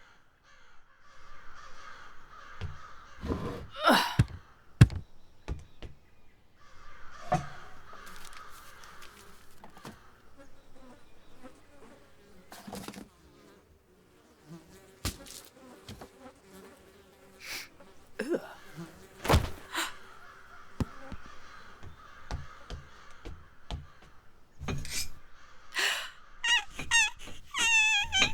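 Layered sound effects for an animated film: crow-like caws and buzzing come and go, broken by several sharp thuds. Near the end comes a run of high, rapidly repeated chirping squeaks from a creature.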